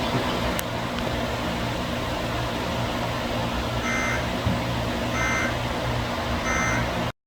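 Emergency Alert System data bursts (SAME digital code tones): three short buzzing bursts a little over a second apart, over a steady rushing background noise. The three bursts are so short that they fit the end-of-message code that closes an alert. The sound cuts off abruptly near the end.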